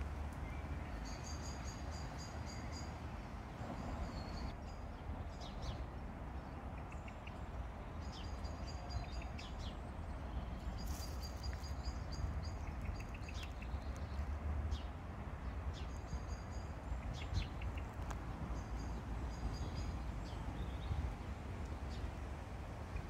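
Small songbirds singing short, repeated chirping phrases that come again every few seconds, over a steady low background rumble.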